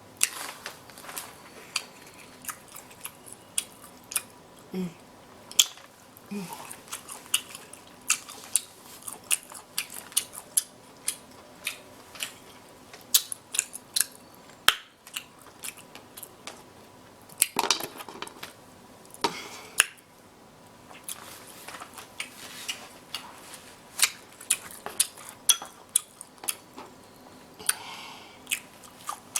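Close-miked, messy eating of king crab: wet mouth smacking and chewing as a dense, irregular run of short clicks, with occasional knocks of crab shell and plate.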